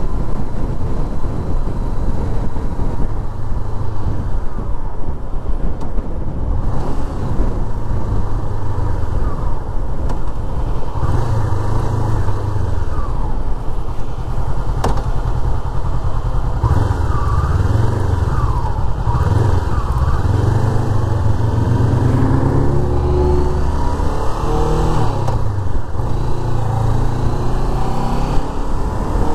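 Engine of a Honda sport motorcycle running while riding, heard from the rider's seat. In the second half the engine note rises and falls several times as the bike gains speed.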